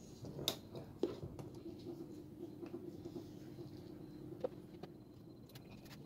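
Quiet handling of a leather keychain strap: waxed thread being pulled through the leather and fingers working it, with a few light clicks, two close together about half a second and one second in and one more near the end.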